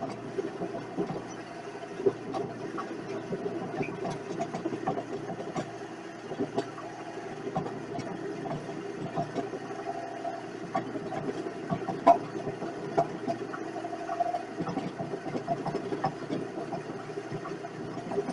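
Vevor 7x14 mini metal lathe running with a steady motor hum, with irregular ticks and knocks throughout and one sharper knock about twelve seconds in.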